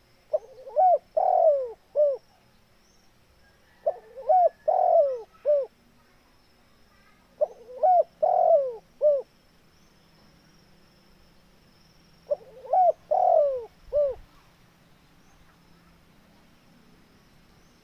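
Spotted dove (tekukur) cooing: four phrases, each of about four coos, the third coo the longest and loudest, spaced a few seconds apart with a longer pause before the last.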